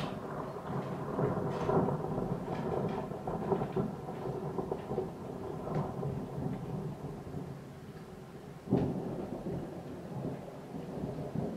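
Thunder rolling and crackling during a thunderstorm, with a sudden sharper crack about nine seconds in, over falling rain.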